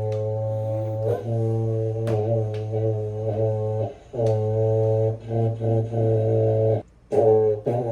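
Music: held chords over a steady low bass note, with brief breaks about four seconds in and again just before the end.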